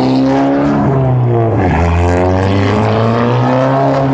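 Car engine held at high revs during a burnout, its pitch dipping briefly about a second and a half in, then climbing again.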